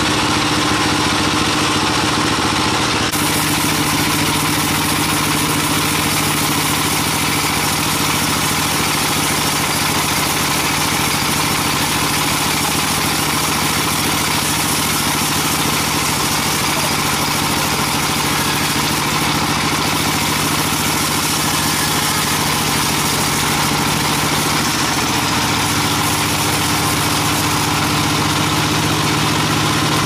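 Large band sawmill running steadily: a constant machine drone with a low hum, its pitch stepping up slightly about 25 seconds in.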